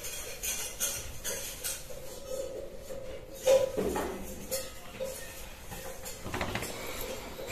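Irregular light clicks and clinks, with one louder knock about three and a half seconds in.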